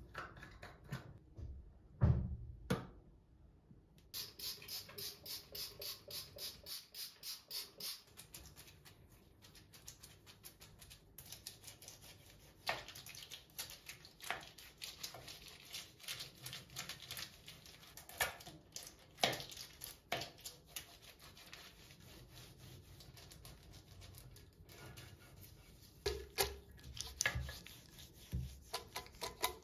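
Stiff-bristled dish brush scrubbing a ceramic sink basin: a run of fast, even back-and-forth strokes, then slower, irregular scrubbing. A single louder bump comes about two seconds in.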